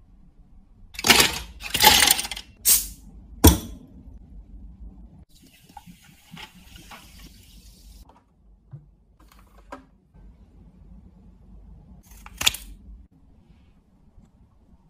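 Ice cubes dropped into a plastic cup: several loud knocks and clatters in the first few seconds. Then a liquid is poured in over the ice with a soft hiss for a few seconds, and one more sharp clatter comes near the end.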